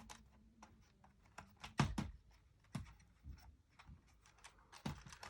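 Scattered light clicks and taps of a laptop's plastic parts and display cable being handled and fitted, with a sharper knock a little under two seconds in.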